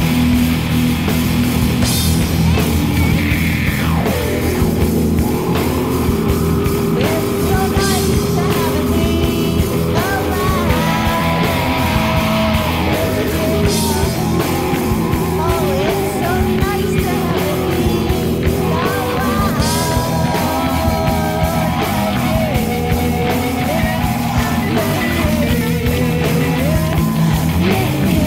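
Rock song playing, with a voice singing at times over a steady beat.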